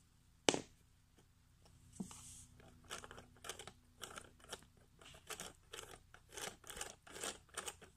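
A sharp plastic click about half a second in as a Lego wheel is pushed onto the axle. From about three seconds on comes a run of short, irregular plastic clicks and rattles as a Lego Technic differential's bevel gears and axles are turned by hand.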